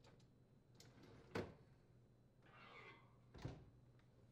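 Handling sounds from a GE dishwasher: a sharp knock from the wire dish rack about a second and a half in, a short swish, then a thunk near the end as the dishwasher door is shut.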